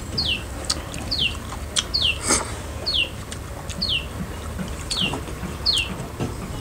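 A bird calling over and over, a short high falling note about once a second, seven times. Light clicks scattered through, one louder about two seconds in.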